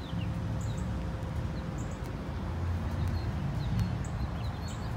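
Low steady rumble with faint, scattered bird chirps.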